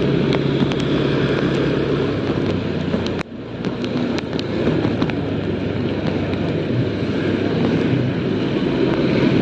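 Motorcycle riding along a wet road: its engine running steadily under wind rushing over the microphone. The sound dips suddenly about three seconds in, then comes back.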